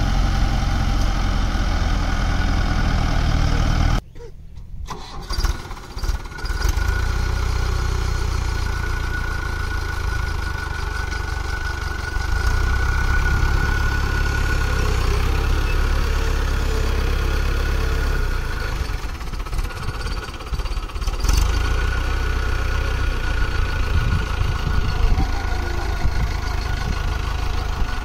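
Mahindra tractor's diesel engine running steadily, with a brief drop in sound about four seconds in before the engine sound carries on.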